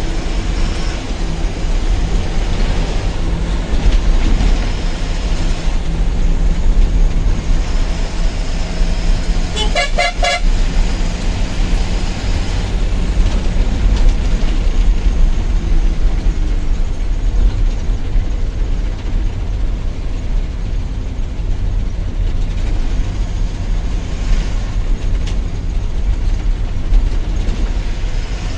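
Goods truck driving on the road, its engine and road noise giving a steady low rumble, with horns tooting. About ten seconds in there is a short, rapidly pulsed horn blast.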